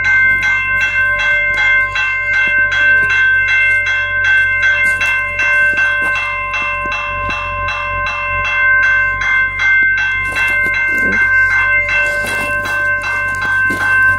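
Railroad grade-crossing bell ringing continuously with rapid, evenly spaced strikes, about three a second. It keeps ringing because a stopped freight train holds the crossing activated.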